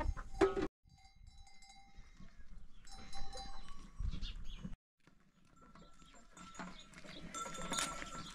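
Farmyard sounds of livestock calling, in three short stretches that each cut off abruptly.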